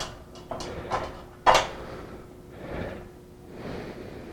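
Metal scaffold parts being handled and fitted: a few light knocks and clicks, the sharpest about a second and a half in, then a softer rustle.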